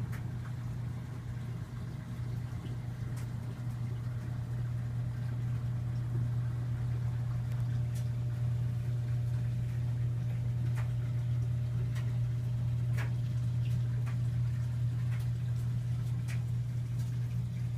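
A steady low mechanical hum, with a few faint clicks now and then.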